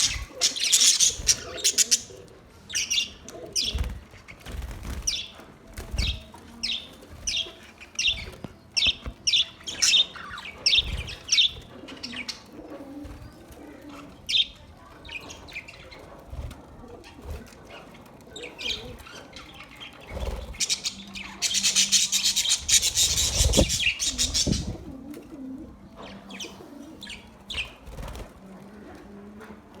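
Budgerigars chirping in a series of short, quick high calls, with two bursts of wing-flapping lasting a few seconds, one at the start and one about two-thirds of the way through.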